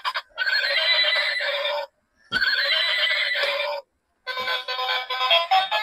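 Battery-operated toy unicorn carriage playing two recorded horse whinnies, each about a second and a half long, then switching to an electronic tune a little past the halfway point.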